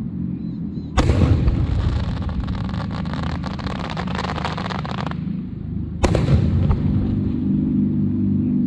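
Fireworks: a sharp bang about a second in, followed by about four seconds of dense crackling that stops suddenly, then a second sharp bang about six seconds in, over a steady low rumble.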